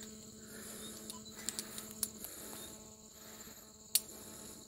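Insects making a steady, high-pitched buzzing in the background, with a few sharp clicks, the loudest near the end.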